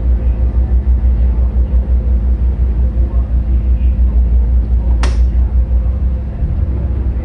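A ship's diesel engine running with a loud, pulsing low rumble, heard in the wheelhouse, as the engine control levers are worked during berthing. There is a single sharp click about five seconds in, and shortly after, the engine rumble drops and changes.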